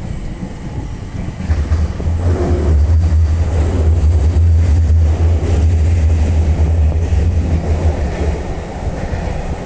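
JR East E721 series 500-subseries two-car electric train running out along an elevated viaduct. Its wheels and motors make a low rumble that swells about a second and a half in and eases off near the end.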